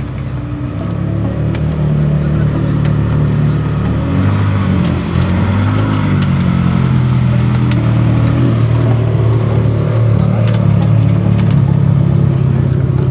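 Ferrari 360 Modena's flat-plane V8 running at low revs as the car pulls slowly away, with a brief rise and fall in revs about five seconds in.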